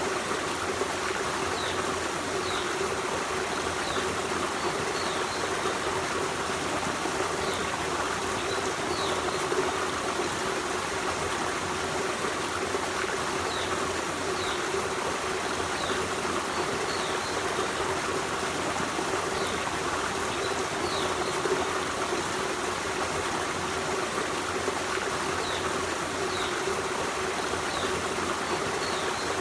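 Forest stream flowing steadily over rocks, a constant rushing and trickling of water. Short, high, falling chirps from a bird recur faintly every second or two.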